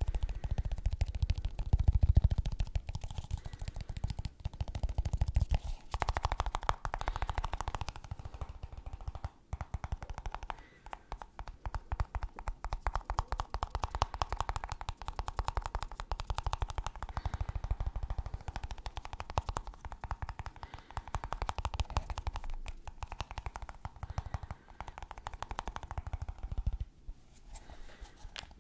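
Fast, continuous tapping on a snus box, in long flurries broken by a few brief pauses.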